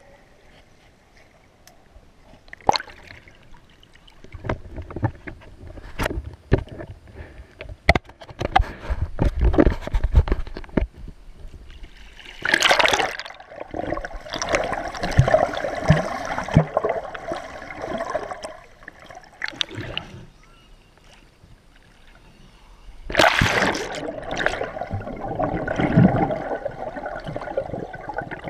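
Water heard from under the surface: scattered knocks and clicks, then two long stretches of bubbling and gurgling, starting about twelve seconds in and again about twenty-three seconds in.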